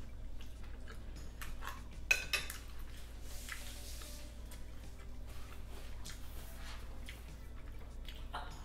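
Fingers and a fork clicking and scraping on a plate as a hard-shell taco is picked apart, with a sharp clink about two seconds in.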